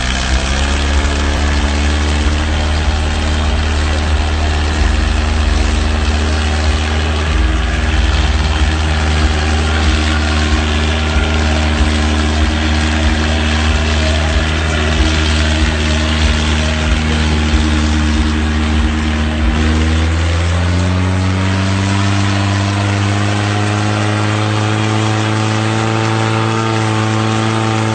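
Mahindra 265 tractor's three-cylinder diesel engine working hard, pulling a heavily loaded trolley hard enough to lift the front wheels. The engine note holds steady, dips about twenty seconds in, then climbs steadily toward the end.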